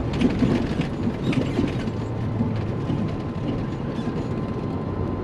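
Cab interior of a cabover Peterbilt 362 semi truck on the move: the diesel engine runs steadily underneath, with many small clicks and rattles from the cab.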